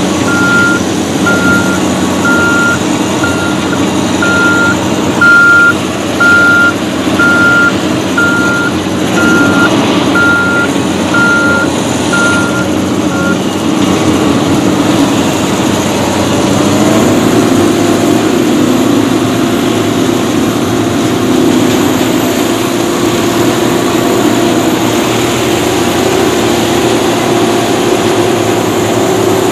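Case sugarcane harvester's diesel engine and machinery running loud and steady, with an electronic alarm beeping about once a second for the first half. About halfway through the beeping stops, and soon after the engine note rises and holds at a higher pitch.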